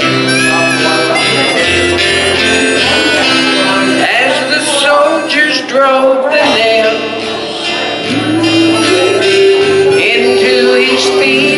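Gospel hymn performed live: singers on microphones over instrumental accompaniment with long held chords.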